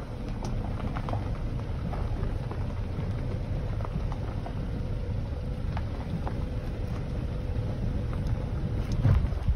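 A car driving on a gravel road: a steady low rumble of tyres rolling over gravel, with scattered small clicks of stones.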